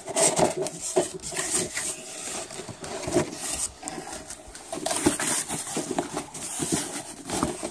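Cardboard box flaps and packing insert rustling and scraping as a circulator pump is worked out of its box, with many small knocks and clicks.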